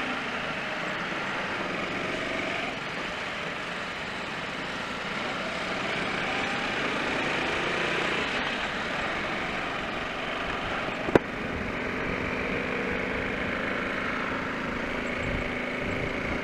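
Honda C70's small single-cylinder four-stroke engine running steadily under way in traffic, mixed with road noise. A single sharp click is heard about eleven seconds in.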